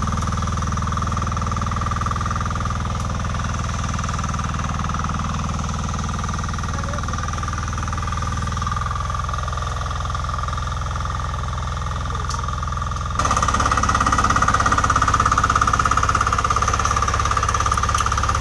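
VST Shakti 95DI Ignito power weeder's single-cylinder diesel engine chugging steadily under load as its tines till the soil between crop rows. About thirteen seconds in, the engine suddenly gets louder.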